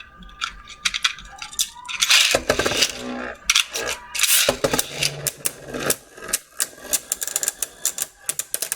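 Hard plastic Beyblade tops and launcher parts clicking and rattling as they are handled, with two short scraping bursts about two and three and a half seconds in.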